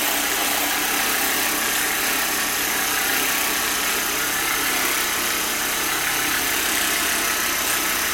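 A small electric motor running steadily, a constant mechanical buzz with a whine in it.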